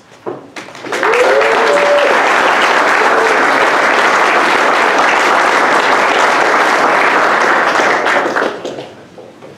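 Audience applauding, starting about a second in and dying away near the end, with a brief whooping call near the start.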